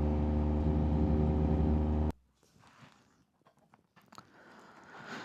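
Yamaha MT-09 three-cylinder engine with a Racefit aftermarket exhaust running at a steady speed, then cutting off abruptly about two seconds in. Near silence follows, with a few faint clicks.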